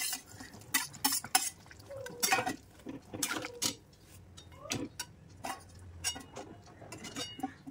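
Metal ladle and spatula clinking and scraping against a metal wok as fish is slid into curry gravy and stirred: a string of sharp, separate knocks and scrapes.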